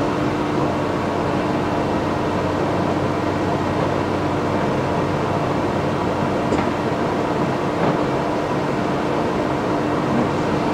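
Clausing Colchester 15 x 30 engine lathe running under power at a higher spindle speed, a steady mechanical hum from the headstock gearing with one steady tone through it.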